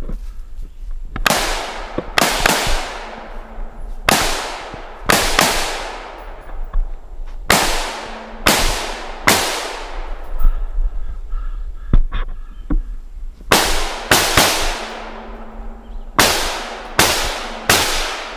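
Rifle fire, about fifteen shots, mostly in quick pairs with pauses of a second or more between, each shot followed by a fading echo.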